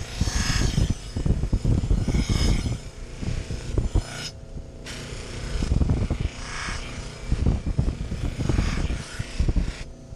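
Bench buffer running while a kitchen knife blade is worked against its emery-compound wheel, a coarse cutting stage. A scraping hiss swells with each of several passes a couple of seconds apart.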